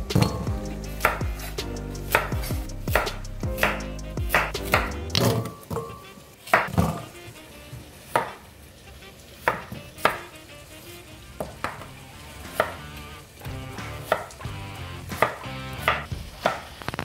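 Chef's knife chopping peeled raw potatoes on a wooden cutting board: irregular sharp knocks as the blade strikes the board, about one or two a second.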